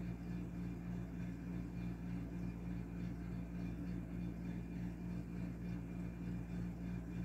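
Steady low hum made of a few constant pitches, with no change or break.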